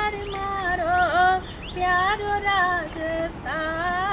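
A woman singing a Hindi song unaccompanied, in phrases of long held notes that slide between pitches.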